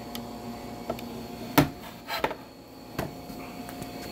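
A few clicks and knocks of a plunge saw being worked by hand, its plunge mechanism and plastic splinter guard shifting, the loudest knock about one and a half seconds in, over a steady faint hum.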